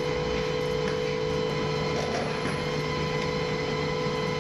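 Steady machine drone with a constant whine running through it, the sound of aircraft machinery heard inside a cargo hold, with a few faint knocks.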